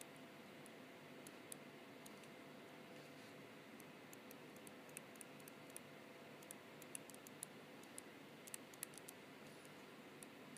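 Faint, irregular ticks and taps of an S Pen stylus tip on a Galaxy Note 3's glass touchscreen during handwriting, over a low steady hiss.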